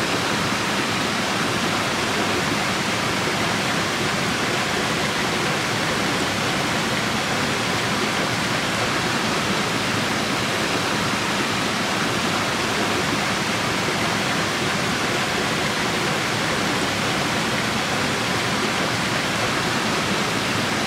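Rushing stream water, a steady even splashing rush with no breaks.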